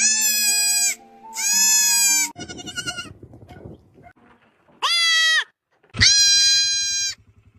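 Four loud, drawn-out bleats of a comic animal sound effect, two close together at the start and two more after a gap. Low background music runs under the first two, and a low steady beat comes in with the last.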